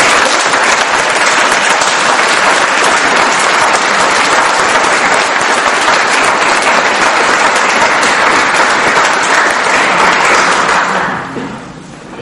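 Audience applauding steadily after a piano piece, dying away about a second before the end.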